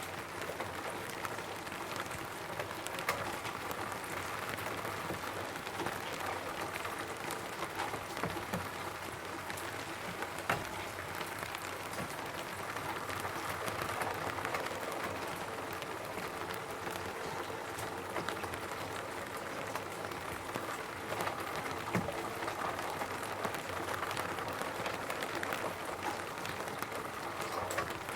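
Steady rain falling on a roof: a dense stream of small drop hits, with a few louder single drops standing out now and then.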